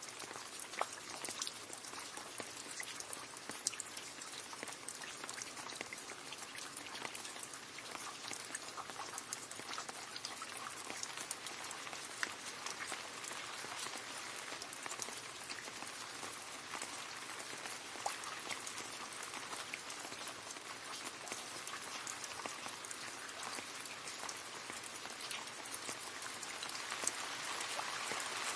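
Steady rain falling and splashing into a puddle, a dense patter of separate drop splashes over a constant hiss, growing a little louder near the end.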